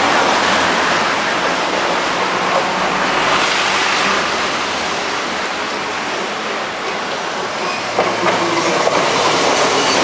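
Trams on a street track: the Botchan Ressha's coaches run off across a road crossing, then an Iyotetsu city streetcar comes in along the rails. The running noise is loud and steady.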